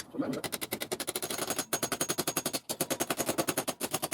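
Hammer panel beating a Lambretta sheet-metal panel: a fast, even run of metal-on-metal blows, about ten a second, with two brief breaks, knocking out dents.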